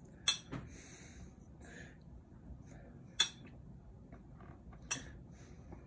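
A metal tablespoon clinking against a mini muffin pan four times, in short sharp taps: two close together at the start, one a few seconds later, and one near the end.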